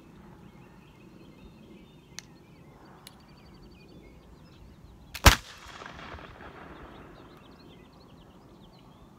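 British dragoon flintlock pistol firing once, about five seconds in: a single sharp shot with a short echo trailing after it. Two faint clicks come a few seconds before the shot.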